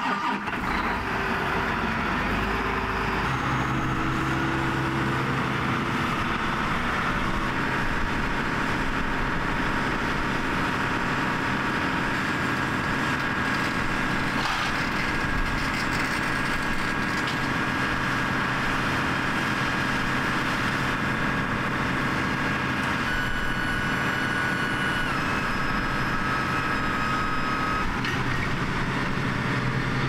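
Large John Deere tractor's diesel engine running steadily while hydraulics fold up the wings of the field cultivator hitched behind it. A thin whine steps down in pitch a couple of times near the end.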